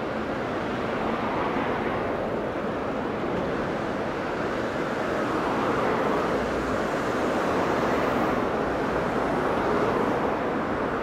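Steady rush of road traffic, swelling a little about six to ten seconds in as cars pass close by.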